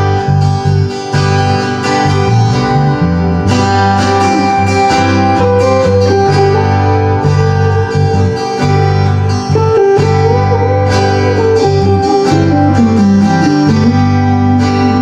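Acoustic guitars played together in an improvised jam: plucked and strummed chords over held low bass notes, with a melody line that slides between notes.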